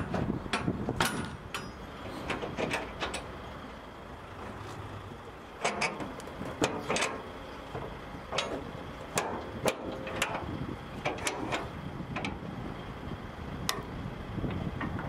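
Irregular metallic knocks and clatter from work at a steel shipping container, over a steady low rumble.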